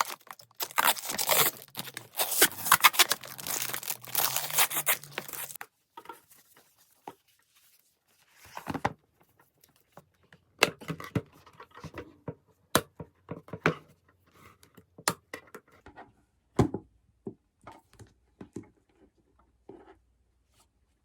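Packaging being torn and crinkled open for about six seconds, followed by scattered light clicks and taps as the items are handled.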